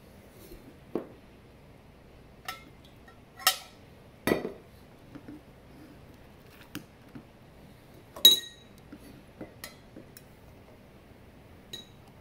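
Glass and metal clinks and knocks from a French-press milk frother being handled: the plunger being drawn out of the glass carafe and the carafe and a stainless steel pitcher knocking together. About a dozen scattered knocks, the loudest about eight seconds in with a brief ring.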